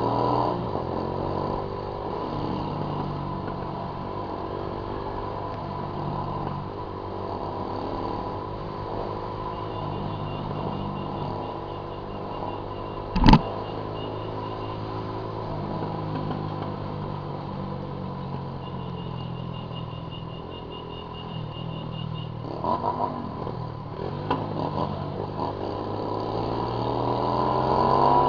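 Honda CG Titan 150's single-cylinder four-stroke engine running on the move, its note rising and falling with the throttle. A single sharp crack comes about halfway through.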